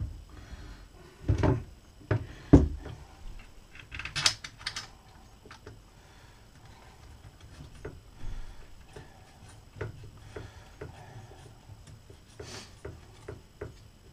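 Plastic arm cuff of a Minelab Equinox 800 metal detector being handled and screwed onto the shaft: a few knocks in the first three seconds, a quick run of sharp clicks about four seconds in, then scattered light clicks and taps.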